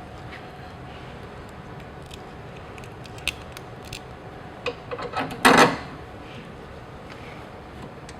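Light metallic clicks and clinks of hand tools and bolt hardware being handled, with a short louder clatter about five and a half seconds in.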